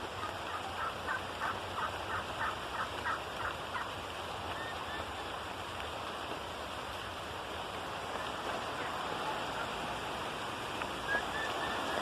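Wild turkeys calling: a run of short, evenly repeated notes, about three a second, for the first four seconds or so, and a few faint notes again near the end. Steady rain hisses under them throughout.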